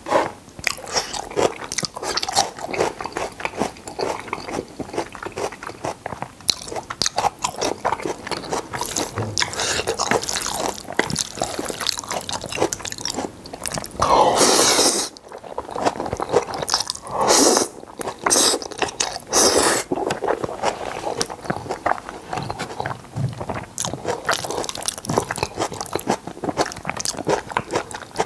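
Close-miked eating of jjajang noodles in black bean sauce: continuous wet chewing and smacking, with a long, loud slurp of noodles about halfway through and shorter slurps a few seconds later.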